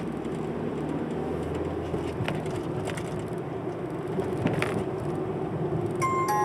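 Inside a small car with a manual gearbox on the move: steady engine and road noise, with a couple of faint clicks. Near the end a short electronic beep starts.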